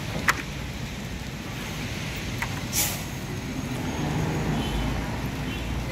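Coach bus with its diesel engine running as it moves slowly, the low engine rumble growing louder a little past halfway. A short hiss of air sounds about three seconds in, and a sharp click comes right at the start.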